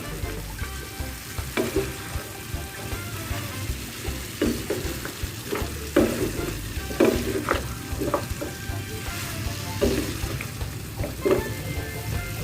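Spatula stirring a pan of pumpkin, baby corn and cow-skin stir-fry, with irregular scrapes and knocks against the pan over a steady sizzle from the simmering food.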